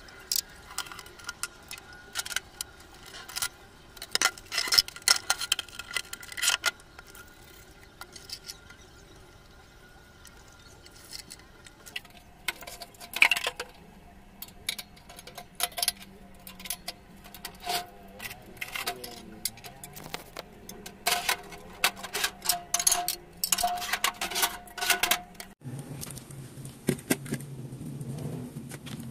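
Dishes and kitchenware being handled and set down: ceramic bowls and other items clinking and knocking irregularly on the counter and a wire dish rack. A low steady hum comes in near the end.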